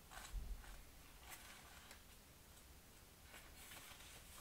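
Faint rustle and soft flicks of paper pages as a small paperback booklet is leafed through by hand, a few brief flicks over near silence.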